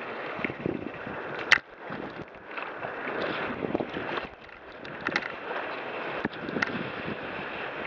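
Choppy waves rushing and splashing along the hull of a wooden sailing kayak under way, with wind on the microphone. A sharp slap of water comes about a second and a half in, the loudest moment, and a few smaller slaps follow later.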